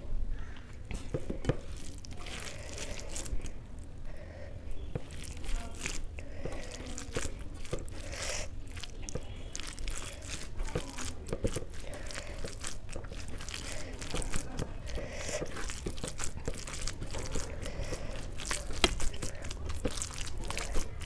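Wet eating sounds of rice soaked in kadhi: chewing and lip smacks as short, sharp clicks, mixed with the squish of a hand working the rice and kadhi on a steel plate, over a low steady hum.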